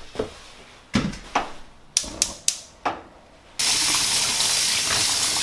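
A few sharp knocks and clicks of handling at a stainless steel sink, then, about three and a half seconds in, the kitchen tap comes on and runs steadily into a steel bowl holding a rock crab and mussels while the crab is scrubbed with a brush.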